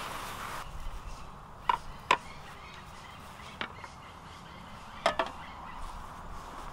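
Five short, sharp knocks of a glass bottle and glass being set down on a camp table, the last two close together about five seconds in, over a low, steady outdoor hiss.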